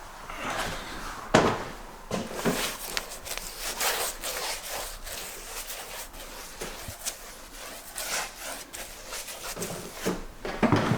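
Irregular rubbing and scraping strokes against a hard surface, with a few sharp knocks.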